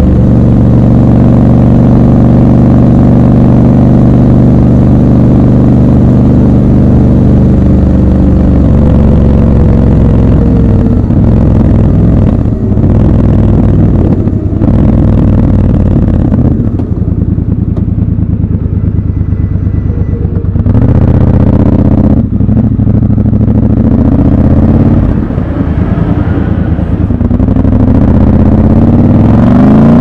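Triumph Scrambler 1200 XC's 1200 cc parallel-twin engine running under way. Its revs hold steady at first, drop about eight seconds in, and dip briefly several times before rising again near the end.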